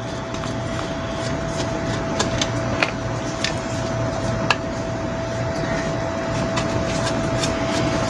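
Steady mechanical hum with a constant whine, and a few sharp light clicks of a screwdriver turning out the screws that hold the ceiling fan motor's cover.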